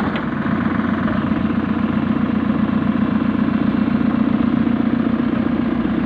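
JCB 3CX Eco backhoe loader's diesel engine running steadily at low revs, with an even, fast pulsing throb.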